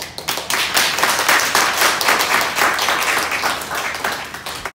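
Audience applauding: many hands clapping together. The applause breaks out suddenly, stays loud and dense, and cuts off abruptly near the end.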